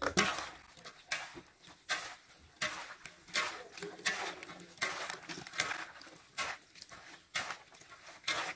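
Hands tossing and squeezing a wet mix of chopped blanched eggplant, peppers, garlic and herbs in a large metal basin: a rhythmic wet rustle, about one stroke every three-quarters of a second.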